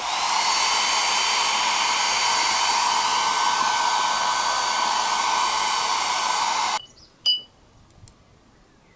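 Small handheld hair dryer blowing air onto freshly blackened steel bolts and washers to dry them: a steady rush of air with a faint whine. It switches off about seven seconds in, and a short clink follows.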